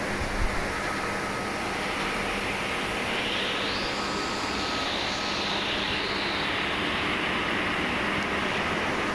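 Semi-automatic two-cavity PET bottle blowing machine running, with a steady hum, a faint steady whine and air noise. A louder hiss of air swells for about three seconds in the middle.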